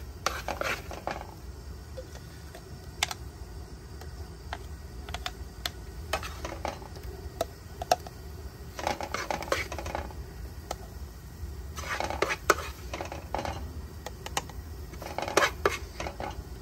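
Metal spoon clinking and scraping against a pan and jar, in scattered single taps and short clusters of clinks, as cooked masala is spooned out.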